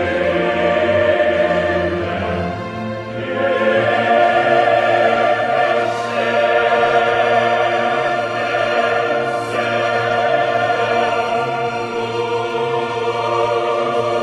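Background music: a choir singing long held notes over an orchestra, with a brief dip about three seconds in before it swells again.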